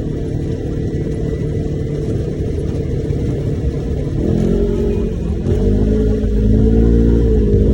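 Side-by-side UTV engine running under a low rumble. It revs up about four seconds in and climbs again a second later, getting louder toward the end.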